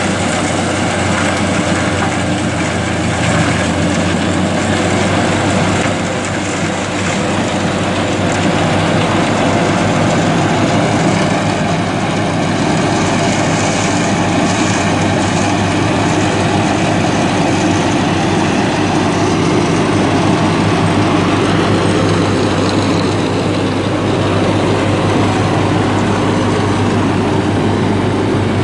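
Baroness crawler flail mower's three-cylinder diesel engine running steadily under load while its Y-blade flail rotor cuts tall grass.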